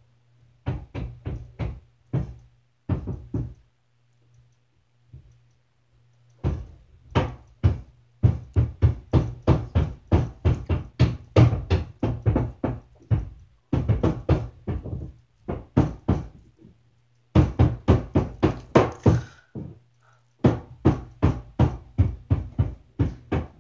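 Roofers hammering on the roof overhead, heard through the ceiling from the room below: runs of rapid knocks, several a second, broken by short pauses.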